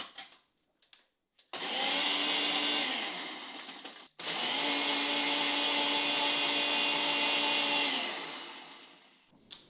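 Ninja single-serve blender blending a protein shake with ice. It starts about one and a half seconds in, eases off and stops abruptly about four seconds in, then starts again at once for a longer run that winds down with falling pitch near the end.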